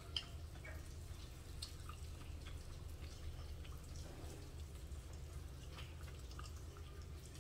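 A metal spoon clinking and scraping against a ceramic bowl in scattered small ticks, with one sharp clink just after the start, over a steady low hum.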